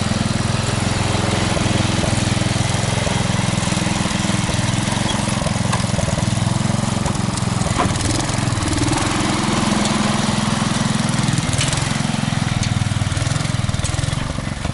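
Old Sears garden tractor engine running steadily while plowing snow, its pitch shifting slightly about halfway through.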